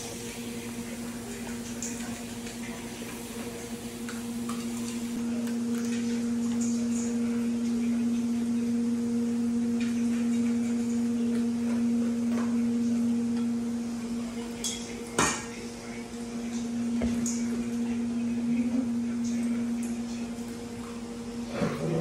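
Dogs eating dry kibble from stainless steel bowls: kibble and metal rattling and clinking in the bowls, with one sharp clank about fifteen seconds in. A steady low hum runs underneath.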